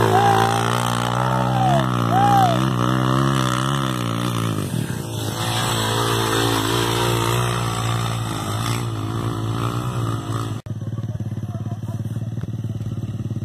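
Dirt-bike engine revving hard and labouring, its pitch rising and falling as the bike climbs a steep dirt slope. Near the end the sound cuts off abruptly to a quieter, steady clattering.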